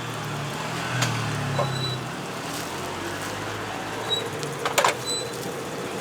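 Street-stall background: a steady low hum with a sharp click about a second in and a quick cluster of louder clacks near the end.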